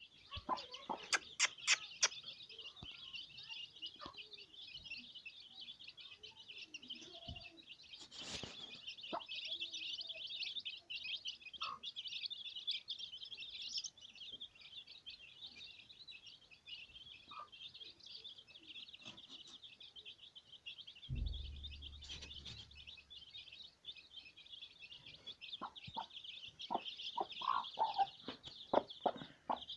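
A brood of Aseel chicks peeping in a continuous, dense, high-pitched chorus. The mother hen clucks now and then, and sharp clicks and knocks from handling come near the start and again near the end.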